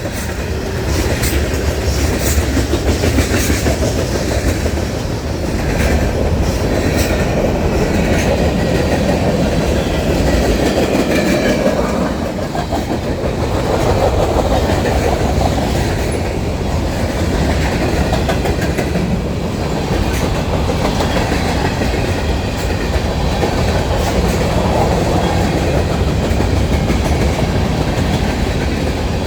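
A CN train rolling past, its railcar wheels clattering steadily over the rails with a continual run of clicks.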